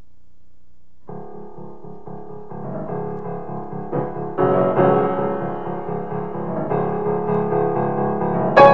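Piano music on the soundtrack enters about a second in over a low hum and builds, its chords growing louder. A sharp, bright chord is struck near the end.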